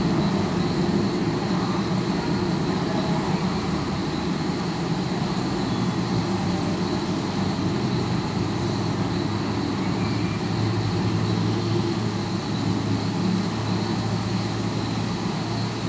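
City traffic noise, a steady rumble of distant road vehicles, picked up through a sound-mirror listening horn. A deeper steady hum grows louder about halfway through, with a thin steady high tone above it throughout.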